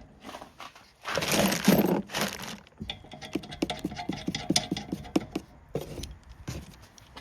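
A brief rustling scrape of metal parts being handled, then a ratchet wrench clicking rapidly, about six clicks a second, as it tightens a bolt onto its self-locking nut.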